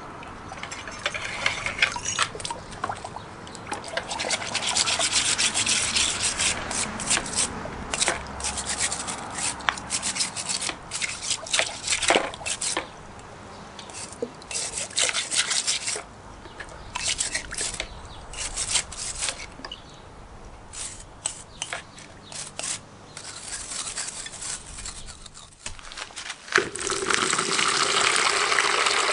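Stiff plastic scrub brush rubbing over a small copper boiler in a bucket of water in quick, scratchy strokes, cleaning off silver-soldering flux residue. Near the end, hot water pours steadily into the bucket.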